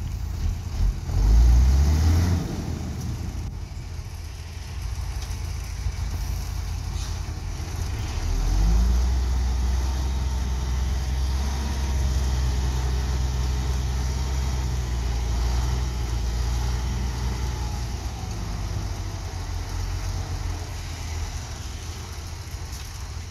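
Diesel dump truck engine revving briefly as it manoeuvres, then held at steady raised revs from about eight seconds in while the hydraulic hoist tips the loaded bed up to dump the dirt. The engine note eases off near the end.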